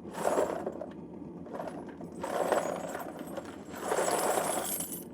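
Spent brass casings dropped into the open crucible of a propane smelting furnace in three batches, each a brief rattling metallic clatter.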